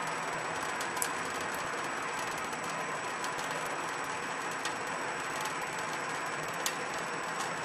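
Thin stream of tap water running from a kitchen faucet into a stainless steel sink: a steady hiss, with a few sharp ticks.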